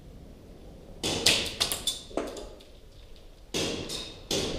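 Airsoft gunfire: a quick run of six or seven sharp cracks and smacks about a second in, then three more near the end.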